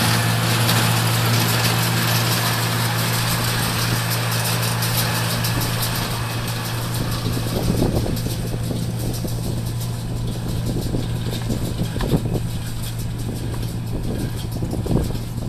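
Oliver 1750 tractor's six-cylinder engine running steadily while pulling a Massey Ferguson 124 square baler with a bale thrower. A high hiss fades out several seconds in, and a few louder knocks come through in the second half.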